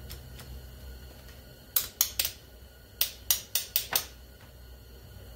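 Sharp clicking taps of a screwdriver against a small-engine carburetor body while working a jet loose: three quick clicks a little under two seconds in, then five more about a second later.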